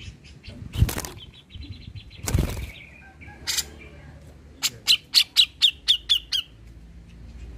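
Caged grey-cheeked bulbul (cucak jenggot) calling: a soft chattering trill, then a quick run of about nine sharp, loud notes at roughly five a second. Two louder thumps come early on, before the run.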